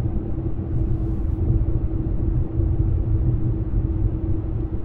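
Steady low rumble of a moving car heard inside the cabin, with an even hum running under it.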